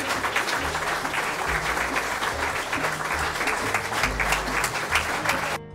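Applause, a dense patter of many hands clapping, over background music with a bass line. Near the end the applause cuts off suddenly, leaving only the music.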